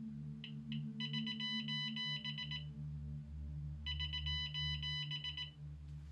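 Radiascan 701 radiation detector giving two single count clicks, then sounding its electronic alarm, a pitched beeping tone, twice: about a second in for a second and a half, and again near four seconds. The alarm is its alert that the tritium source is possibly radioactive.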